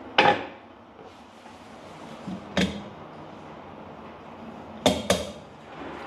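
Sharp knocks of metal espresso tools, a dosing cup and portafilter, as ground coffee is tapped across from one to the other: one just after the start, one about halfway, and a quick pair a little before the end.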